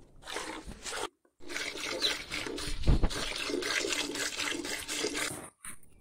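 Milk squirting into a bucket as a cow is milked by hand, a quick rhythm of squirts, broken off briefly just after a second in, with one dull thump about three seconds in.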